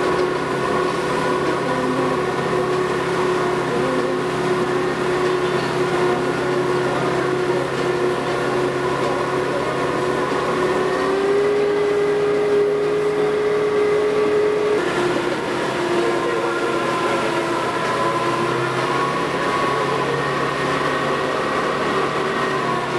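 Motorboat engine running steadily at speed, a droning hum whose pitch rises a step about halfway through and drops back a few seconds later.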